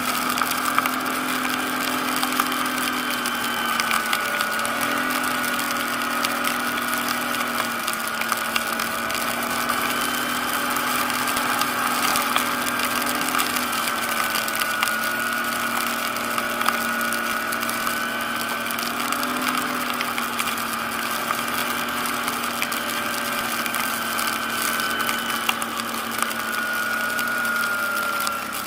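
ATV engine running steadily under light throttle, its note stepping up and down slightly every few seconds, with a steady whine above it from the drivetrain.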